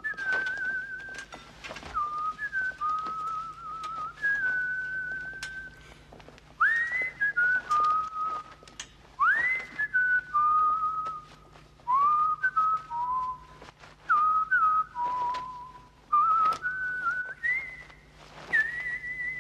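A man whistling a slow tune in held notes with a slight vibrato, some notes swooping up into pitch. A few sharp clicks and rustles come in between.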